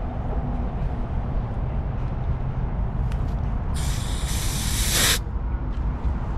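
A burst of liquid propane hissing out of the brass valve at the end of a propane refill adapter hose, opened briefly to prime the hose. The hiss starts about four seconds in and cuts off after about a second and a half, over a steady low rumble.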